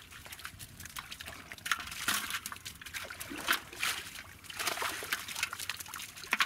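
Shallow water splashing and sloshing in irregular bursts as hands pick prawns and fish out of a cast net.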